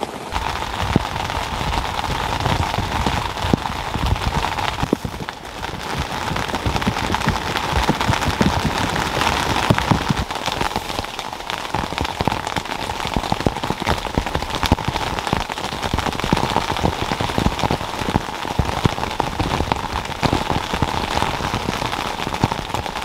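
Rain pattering steadily on the tent fabric, heard from inside the tent as a dense wash of countless small drop hits.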